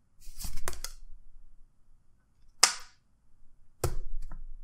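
Cards and packs being handled on a table: a short burst of rustling and clicking, a single sharp knock about two and a half seconds in, and another brief burst of clicks near the end.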